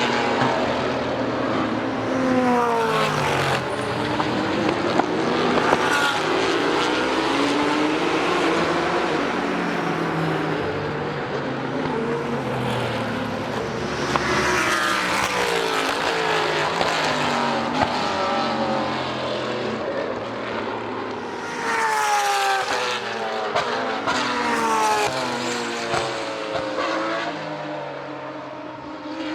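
Sports-prototype and GT race cars passing at speed in practice, one after another, engine notes climbing and then stepping down through gear changes. The busiest passes come a few seconds in, around halfway, and again about three quarters through.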